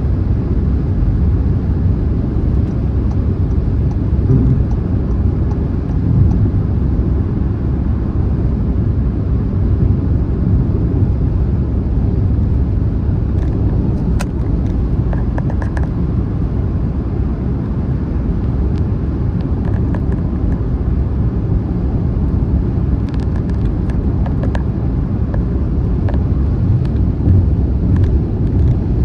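Steady low rumble of road and engine noise from a car cruising on a motorway, with a few faint light ticks about halfway through and again later.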